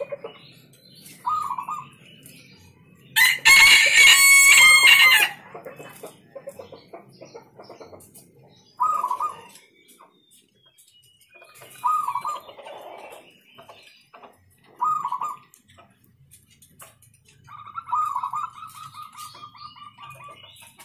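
Zebra dove cooing in short phrases every few seconds, ending with a longer rolling coo of fast repeated notes near the end. A rooster crows once, loudly, about three seconds in.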